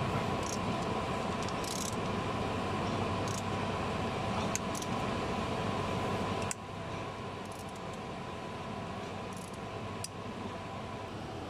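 Iveco Daily 3.0 diesel engine being turned over by hand with a wrench after a timing chain replacement: a few scattered short metallic clicks over a steady hum, which drops in level about six and a half seconds in.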